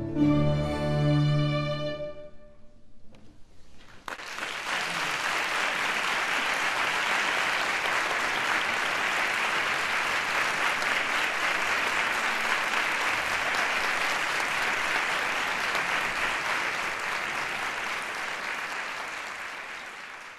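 A guitar orchestra with cello and double bass sounds a final held chord that dies away over about two seconds. After a short pause, the audience breaks into steady applause, which fades near the end.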